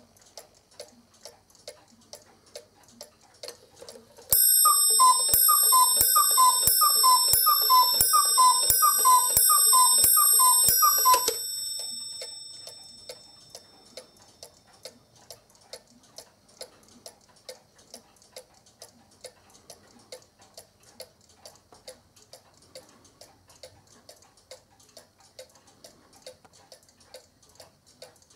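A Black Forest clock from about 1950–60 ticking, then striking the hour on its brass bell with the gnome figure's hammer: about ten ringing strikes, roughly one a second, starting about four seconds in. The bell's ring fades over a few seconds after the last strike, and the ticking goes on.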